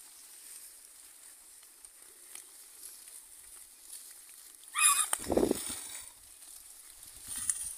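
A herd of pigs feeding, with faint rustling and munching. About five seconds in, one pig gives a short high squeal that runs straight into a loud, harsh, low grunting call lasting about a second.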